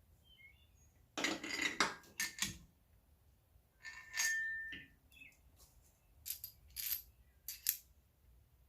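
Metal hardware and tools being handled: several sharp clinks and clatters, with one short metallic ring about four seconds in.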